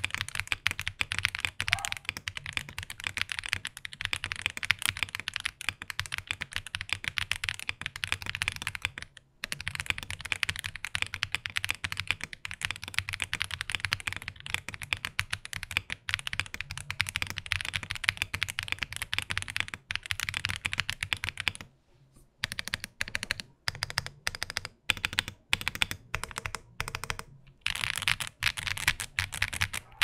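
Typing sound test on a Meletrix Zoom98 98% mechanical keyboard with stock, unlubed WS Brown tactile switches and PBT keycaps, its plate and bottom foam fitted, no PE foam, and the PCB flex cuts taped over. Most of the time it is fast continuous typing. Two-thirds of the way through it slows to separate single keystrokes, about two a second, before fast typing resumes near the end.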